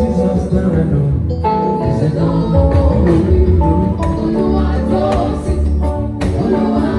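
Live band music with singing and a strong bass line, typical of a gospel band sound check.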